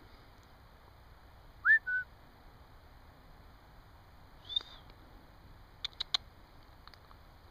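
A short, loud human whistle about two seconds in: one quick rising note that then holds level briefly. A faint high chirp follows a couple of seconds later, and then three quick clicks.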